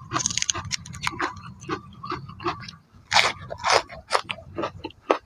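Eating sounds: a man chewing crisp lettuce leaves with sauced balut, a run of wet crunches and mouth clicks. A leaf rustles as it is torn in the first moment, and the crunching grows louder about three seconds in.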